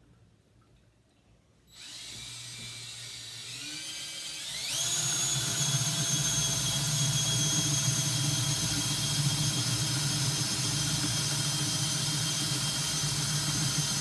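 Cordless drill starting up about two seconds in, rising in pitch to full speed about four and a half seconds in, then running steadily as it bores a hole into a small log.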